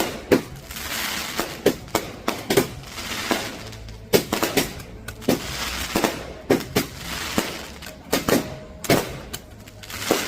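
Firecrackers bursting in an irregular run of sharp bangs, with hissing, crackling noise between them.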